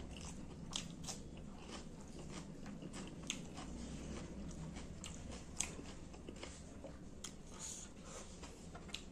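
A person chewing a mouthful of rice and fish curry close to the microphone, eating by hand, with many short scattered wet clicks.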